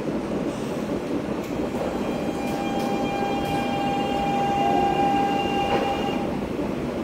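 SuperVia Série 2000 electric multiple-unit train running on the rails, heard from inside the car as a steady rolling rumble. A high squeal rises over it about two seconds in, holds for around four seconds, then stops.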